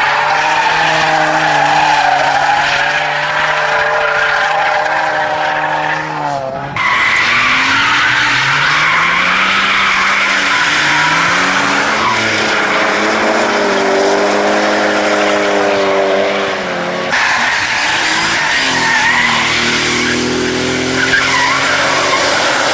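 Cars drifting: engines held at high revs, their pitch rising and falling as the throttle is worked, over the steady screech of sideways-sliding, smoking rear tyres. The sound changes abruptly twice as one run gives way to another.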